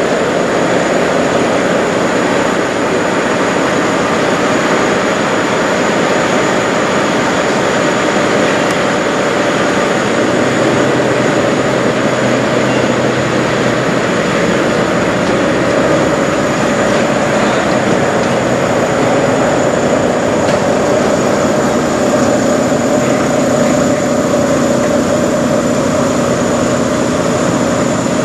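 Peterbilt semi truck's diesel engine idling steadily, heard up close: a loud, unchanging drone with a thin high whine over it.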